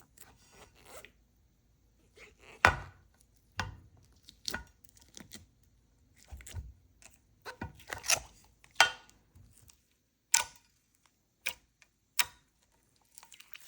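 Thick, putty-like clear slime being worked by hand, giving a string of irregular sharp clicks and pops, the loudest about three seconds in.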